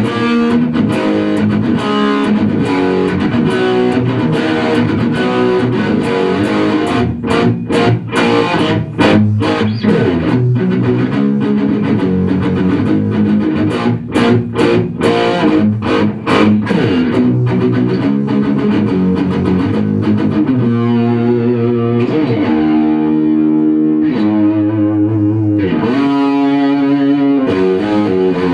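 Rock music led by distorted electric guitar with bass. About a quarter of the way in, the music turns to a run of short, clipped hits with brief gaps between them; after that it settles into held chords.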